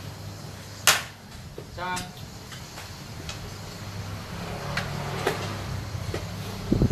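A sharp click about a second in, then scattered faint clicks and taps and a dull thump near the end, over a steady low hum.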